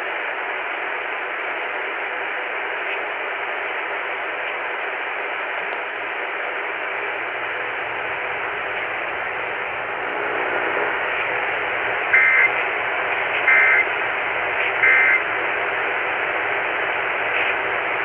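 A RadioShack emergency radio tuned to AM 760 plays steady static hiss, which gets a little louder about ten seconds in. About two-thirds of the way through come three short bursts of warbling data tones, roughly a second and a half apart. These are the digital SAME header of the Emergency Alert System monthly test.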